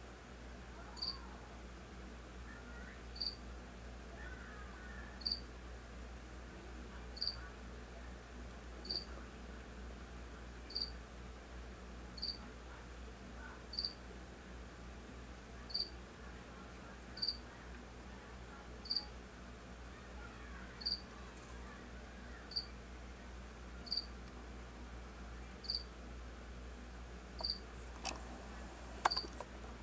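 Insect chirping: a single short, high chirp about every one and a half to two seconds, evenly repeated. Two sharp clicks come near the end.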